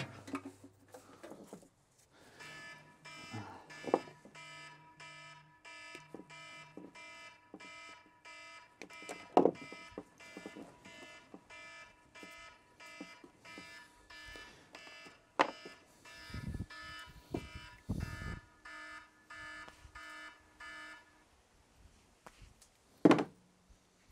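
Electronic warning beeps repeating about twice a second, stopping about three seconds before the end, with a few sharp knocks over them.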